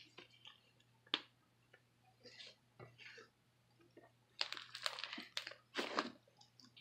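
Fluffy slime being squeezed and worked by hand, giving scattered sticky clicks and pops that turn into a denser run of crackling clicks a little past halfway.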